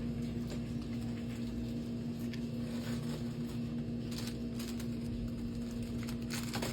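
A few light clicks and taps from small plastic product packages being handled, over a steady low electrical-sounding hum.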